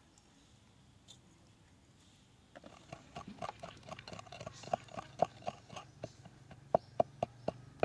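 Wooden pestle pounding a wet chilli and garlic mix in a clay mortar. It starts about two and a half seconds in as a run of wet knocks, about three or four a second, and the strongest knocks come near the end.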